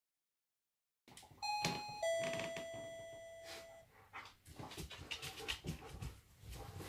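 Two-tone ding-dong doorbell chime: a higher note, then a lower one that rings out for about two seconds. After it, a dog's claws click and patter irregularly on a hard floor as the dog moves about.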